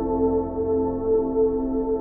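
Ambient music: slow, sustained drone-like tones held steady, with a singing-bowl-like ring.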